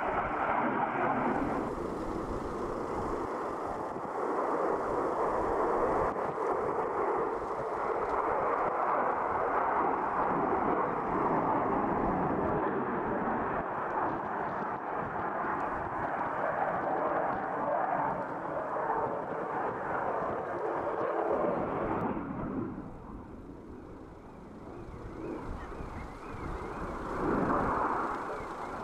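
F-16 fighter jet in a display flight: loud, steady jet engine noise that fades about three quarters of the way in, then swells briefly again near the end.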